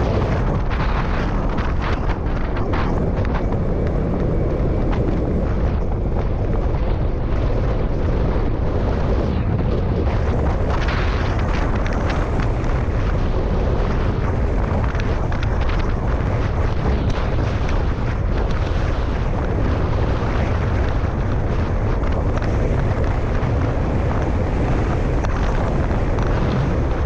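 Wind buffeting the microphone of a bicycle-mounted GoPro riding at about 20 to 35 mph: a loud, steady low rumble with no let-up.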